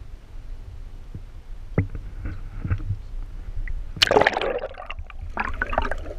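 Camera plunged into the water with a sudden splash about four seconds in, followed by sloshing and gurgling water around it. Before that, low wind rumble and a few knocks of handling.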